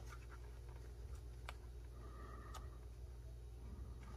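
Faint handling of a beaded coin purse as a needle is worked through its zipper seam: three or so small, sharp clicks over a low steady hum.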